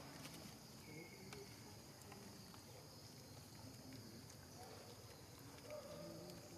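Faint outdoor ambience: a steady high insect drone, with a few faint short low sounds and light ticks.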